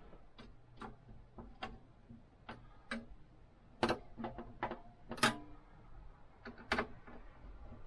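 Irregular light clicks and taps of small hard computer parts and screws being handled during a PC build, some louder than others.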